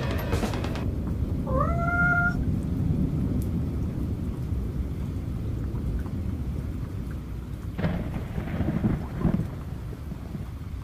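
Thunder rumbling low over steady rain, with a short rising call about two seconds in and a louder rumble around eight seconds in.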